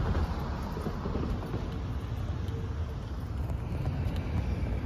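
Wind buffeting a phone's microphone outdoors: a steady, uneven low rumble.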